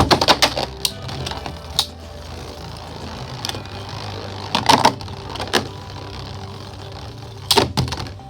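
Two Beyblade spinning tops whirring in a stadium and clashing with sharp clicks and clatters: a flurry right after the launch, again about four and a half seconds in, and near the end.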